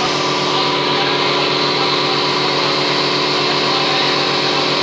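Semi-automatic thermocol plate making machine running: a steady machine hum with several held tones over a fast, even low pulsing.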